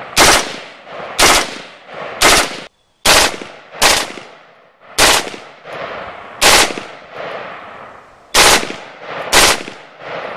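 FN M16A4 rifle firing outdoors: about nine sharp reports, irregularly spaced roughly a second apart, each followed by a short echoing tail.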